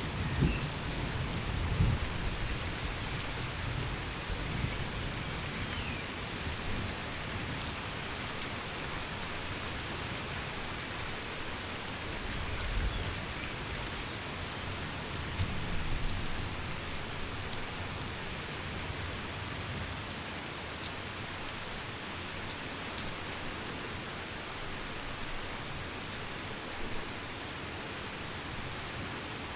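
Heavy rain falling steadily in a thunderstorm. Low rumbles of distant thunder swell in the first few seconds and again around the middle.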